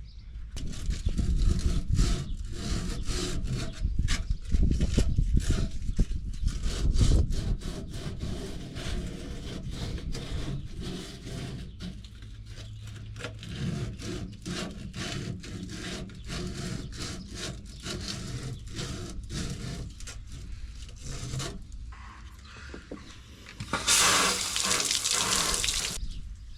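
Emery cloth rubbed back and forth by hand over the freshly sawn end of an RV drain pipe, smoothing the cut edges in quick, repeated strokes. A brief louder hiss comes near the end.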